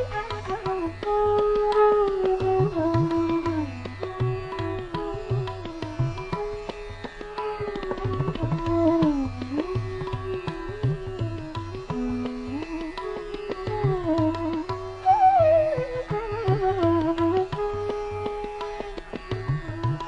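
Indian classical-style instrumental background music: a melody line holding notes and sliding between them over repeated hand-drum strokes.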